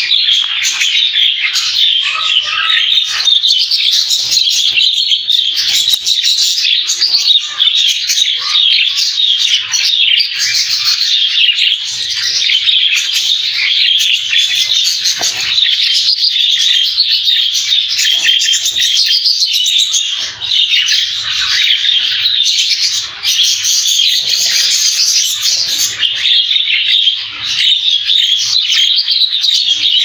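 Many budgerigars chattering and chirping together in a continuous, dense warble of high chirps and short twittering notes.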